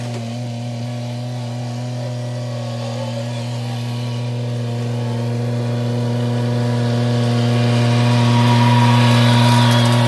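Compact tractor engine running at a steady speed while it pulls a homemade roller crimper, with no revving. It grows louder as the tractor approaches and is loudest near the end as it passes close by.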